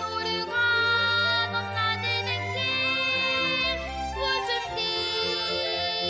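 Orchestral arrangement of a children's song for flute, oboe, clarinet, bassoon, vibraphone and strings, the melody moving up and down in short steps over sustained lower parts.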